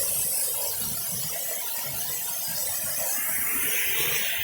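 Waterfall rushing into its pool: a steady, even hiss of falling water, growing a little fuller about three seconds in.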